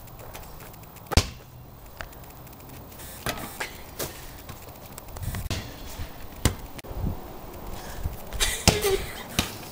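Basketball being shot and bounced: irregular sharp knocks and dull thumps against the hoop and the ground, the loudest about a second in and a cluster near the end.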